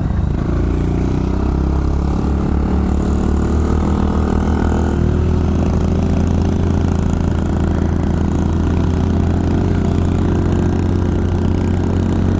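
Honda CRF125F's small single-cylinder four-stroke engine running steadily as the dirt bike is ridden, its note shifting slightly about a second in and again about five seconds in.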